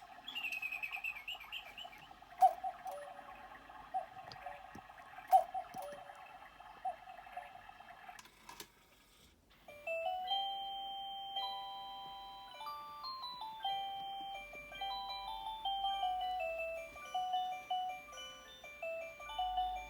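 Battery quartz cuckoo clock's hourly show: recorded birdsong chirping over a steady hum, with a couple of sharp clicks. After a short pause about nine seconds in, its electronic music-box-style melody begins and plays on.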